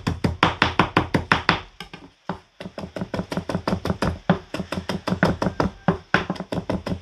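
Kitchen knife chopping green onions on a cutting board: a fast run of knocks, about five a second, with a short break about two seconds in.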